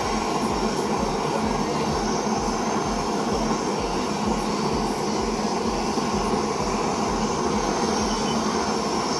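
Jeweller's soldering torch flame running with a steady hiss, heating a silver joint until the solder melts and the joint takes.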